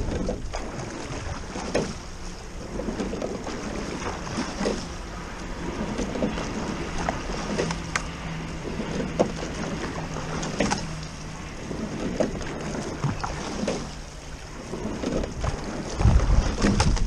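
Double scull rowing shell under way on choppy water: water washing and splashing along the hull, with wind buffeting the microphone. A short knock and splash comes every two to three seconds with the oar strokes.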